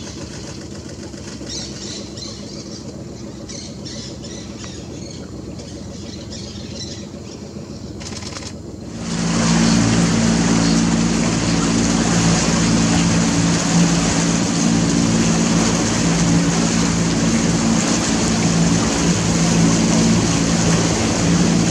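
Motorboat engine running steadily at speed, with rushing wind and water, cutting in suddenly and loudly about nine seconds in after a quieter stretch of outdoor ambience.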